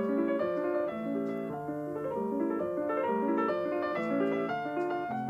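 Solo piano music playing steadily in a flowing run of notes: a DVD menu's background music.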